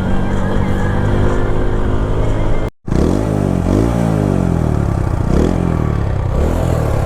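TVS Apache single-cylinder motorcycle engine and exhaust while riding, running steadily, then, after a brief cut-out about three seconds in, revving up and down several times. The irritating exhaust noise the rider wanted to show is not present.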